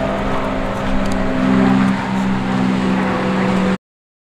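A steady, engine-like motor hum with a rushing noise over it that cuts off abruptly near the end.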